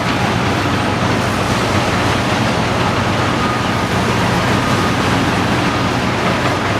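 Caterpillar 330D L excavator's diesel engine running steadily under working load, with a faint high, steady whine above the engine.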